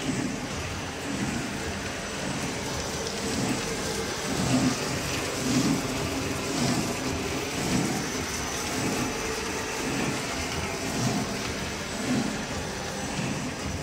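QZ1300-2 roll-to-sheet paper cutting machine running, a steady mechanical clatter with a regular beat about once a second.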